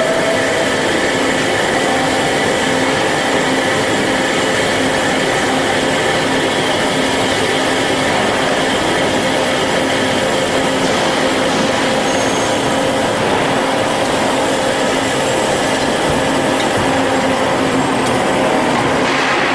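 Band saw running steadily: a constant mechanical hum and whine with a hiss over it.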